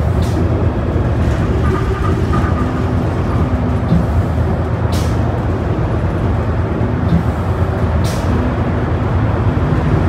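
Ride noise inside a New Flyer Xcelsior XD40 diesel bus under way, a steady low rumble from its Cummins L9 engine, drivetrain and tyres. Three short sharp rattles from the cabin, one near the start, one about halfway and one near the end.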